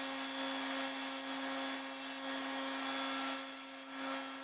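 Shopline Jet 6-inch bench grinder running with Razor Sharp Edge paper sharpening wheels, a steady motor hum under an even hiss as a steel broadhead blade is held against the spinning paper wheel to sharpen it. The hiss eases slightly near the end.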